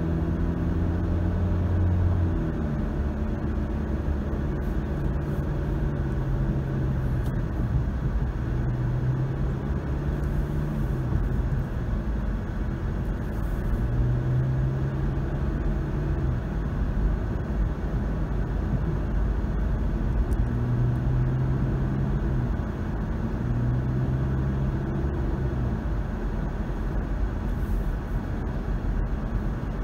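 Car driving at road speed: steady tyre and road noise, with a low engine hum that swells and fades several times.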